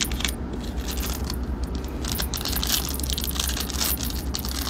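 Foil wrapper of a Bowman Chrome trading card pack crinkling steadily with many small crackles as it is handled and torn open by hand.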